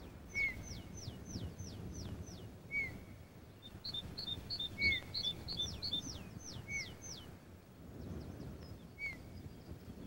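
Small songbirds calling in a winter forest: a short high call repeating about every two seconds, two quick runs of high, falling whistled notes, and a fast twittering series of paired notes in the middle, over a faint steady background hiss.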